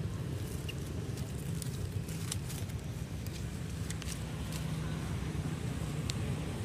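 Steady low outdoor rumble, with scattered faint clicks and crackles of dry leaves.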